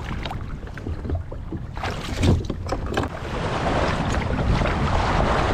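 Kayak paddling in wind: a low rumble of wind on the microphone, a quick run of paddle splashes about two seconds in, then a steadier rush of water that grows louder.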